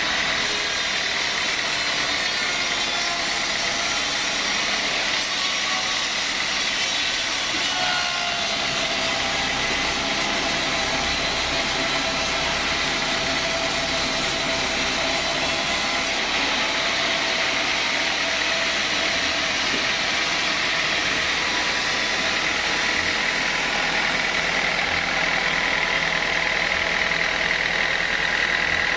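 Sawmill saw and its motor running steadily: a constant mechanical noise with a steady high whine over it.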